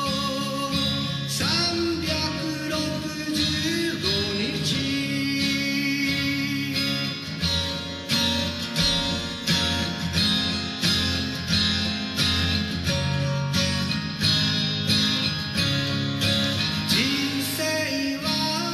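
Music: an acoustic guitar strummed in a steady rhythm, played solo as the accompaniment to a sung song.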